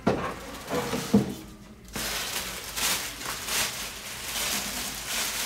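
Two light knocks, then a plastic packing bag crinkling and rustling as it is handled, from about two seconds in.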